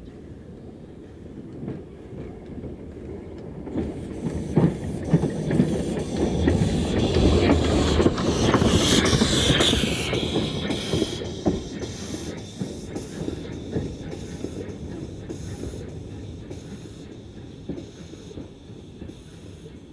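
Steam locomotive moving close by. The sound builds from about four seconds in and peaks with a loud hiss of steam around the middle. It then eases off to a run of regular clicks of wheels on the track, at about one and a half a second.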